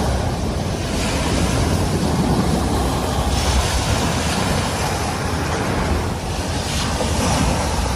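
Steady wind rushing over the microphone, heavy in the low end, with waves washing onto a shingle beach.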